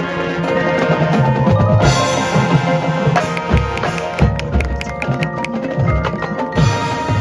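High school marching band and front-ensemble percussion playing: held brass chords with drum hits, and from about halfway through a quick run of sharp mallet or wood-block strikes.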